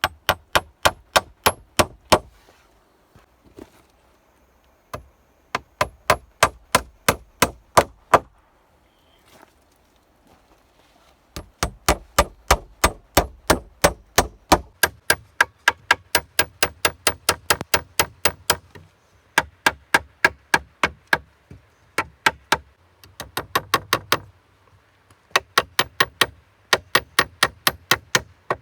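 Hammer blows in quick runs of about four or five strikes a second, each with a short ringing clang, stopping for a moment between runs.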